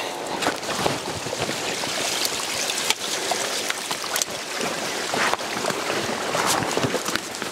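Footsteps on loose rock and gravel, with packs and clothing pushing through bare alder branches: a continuous rustle and scrape broken by scattered twig snaps and clicks.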